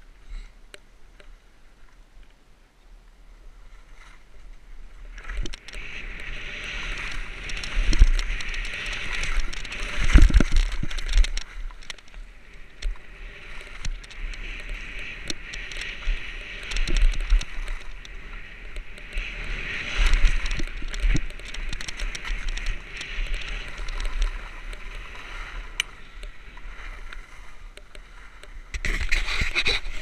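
Skis sliding over snow with a rushing hiss, and wind buffeting the camera microphone. Fairly quiet for the first few seconds, then a swelling and easing rush with scattered clicks and knocks, louder again near the end.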